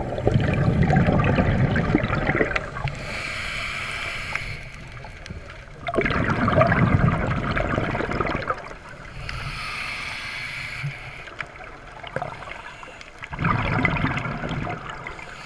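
Scuba diver's breathing through a regulator, heard through a GoPro's underwater housing. Three loud bursts of exhaled bubbles rumble and gurgle about six seconds apart, with a softer hiss of inhaled air between them.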